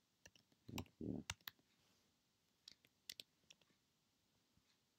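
Sparse keystrokes on a computer keyboard: a few scattered clicks in two small clusters, with a brief low thump about a second in.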